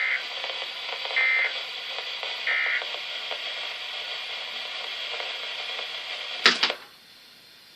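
Weather radio broadcast over steady static, with three short warbling data bursts about a second apart: the SAME end-of-message code that closes the weekly test alert. Near the end a loud click cuts the static down to a faint hiss.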